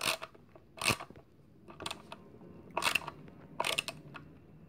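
Cordless drill-driver driving a screw into the vanity panel in short pulses: about six brief crunching bursts, roughly one a second.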